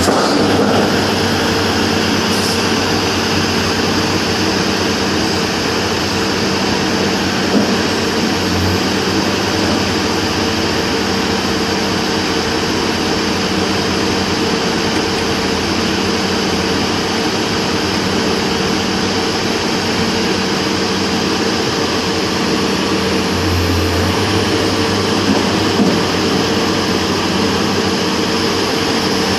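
Heavy diesel engine of a rotary drilling rig running steadily with a constant low hum, holding an even speed. A couple of brief low surges come about nine seconds in and near the end.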